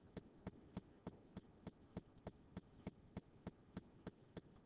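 Faint, even ticking, about three ticks a second, over quiet room tone.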